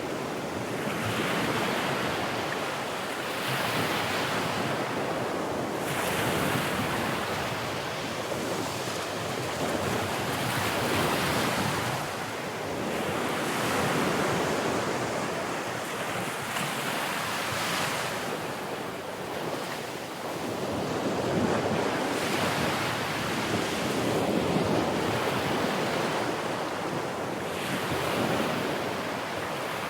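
Sea surf: waves rushing in and washing back, swelling and fading every few seconds.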